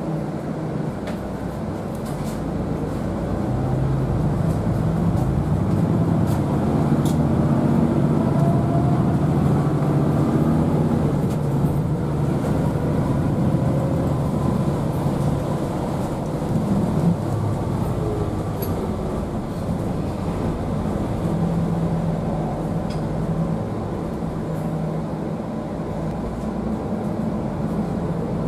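MAN D2066 inline-six diesel and ZF EcoLife six-speed automatic gearbox heard from inside the bus cabin as the bus drives. The engine note shifts pitch in steps, with a few rising whines, and there are occasional light rattles.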